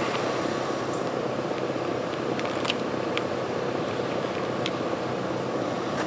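Rheem central air conditioner's outdoor condensing unit running steadily, its compressor hum under the condenser fan's even whoosh, with a few faint clicks. The unit is in normal cooling operation, still settling in its first minutes after start-up.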